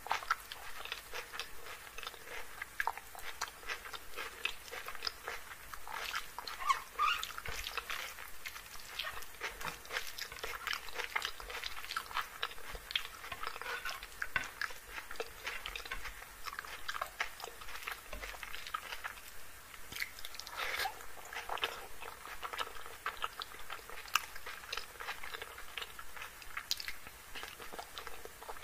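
Close-miked eating sounds: a dense, continuous run of small wet clicks and smacks from chewing chicken curry and rice, mixed with the squelch of fingers working the curry-soaked chicken on the plate.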